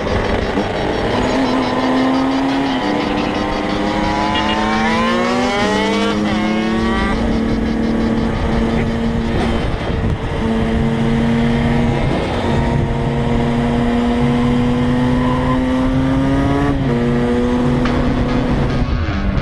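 125 cc two-stroke supermoto motorcycle engine under hard acceleration: the revs climb steeply and drop sharply at an upshift about seven seconds in, then hold high and creep up in the next gear before another upshift near the end.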